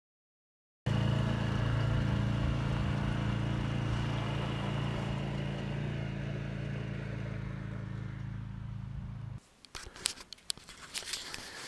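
ATV engine running steadily, slowly fading as the machine drives away. It stops abruptly, followed by a few sharp clicks and scrapes.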